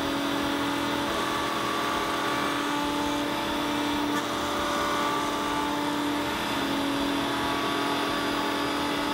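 Table-mounted wood router running steadily at full speed with a steady whine, trimming the sharp corners of an ABS plastic bracket to a radius guided by a template.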